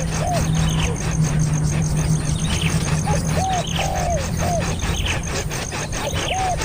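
A bird calling a short phrase of about four rising-and-falling whistled notes, repeated about every three seconds, over a steady low hum and faint rapid clicking.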